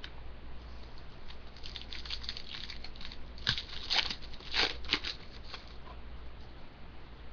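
Trading-card pack wrapper being torn open and crinkled by hand: a run of short crackles, loudest around the middle, over a faint steady low hum.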